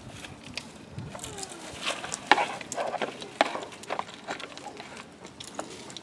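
Plastic toy excavator digging in loose wood chips and dropping them into a plastic toy dump truck: a run of crunching rustles and sharp plastic clacks, the loudest a little past two seconds and again about three and a half seconds in.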